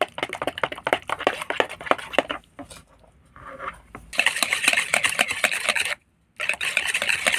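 Eggs being beaten by hand in a bowl: quick, rhythmic strokes of the utensil clicking and slapping through the frothy liquid against the bowl, several a second. The strokes ease off briefly a few seconds in, then pick up again faster and louder.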